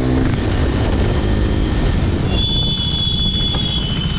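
Motorcycle engine running and road noise while riding, a dense low pulsing drone. About halfway in, a steady high-pitched tone joins it and holds to the end.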